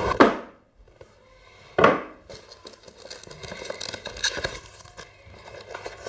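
Cardboard packaging being opened and handled by hand: two sharp sliding scrapes about a second and a half apart as the box comes out of its sleeve, then light rustling and tapping of the packaging.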